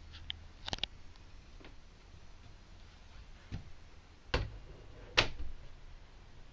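A few sharp clicks and knocks at uneven intervals, the two loudest about four and five seconds in.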